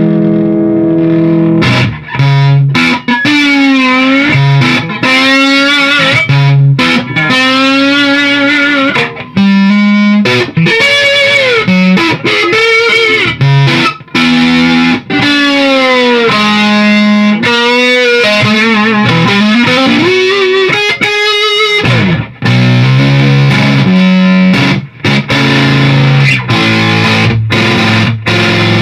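Electric guitar played through a Beetronics Tuna Fuzz pedal into a Marshall Plexi amplifier and cabinet, heard through a room microphone: a loud fuzzed lead line of sustained single notes with bends and vibrato, breaking off briefly near the end before lower notes ring out.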